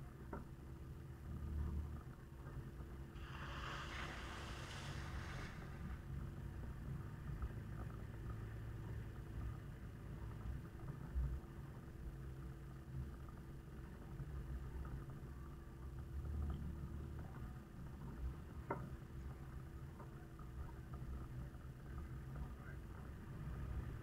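Toyota Land Cruiser HZJ78 troopy's 1HZ diesel engine running steadily at low speed while driving on a dirt track. A short hissing noise comes about three seconds in and lasts two seconds or so, and a few light knocks occur later.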